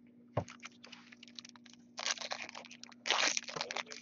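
Foil wrapper of a Topps Chrome football card pack crinkling as it is opened, in dense bursts of crackling about two and three seconds in, with a single soft knock shortly after the start.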